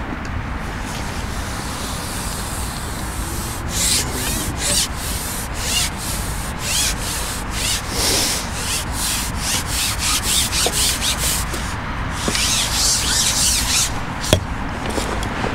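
A run of short, irregular rubbing and scraping sounds close to the microphone, over a steady low rumble, with one sharp click near the end.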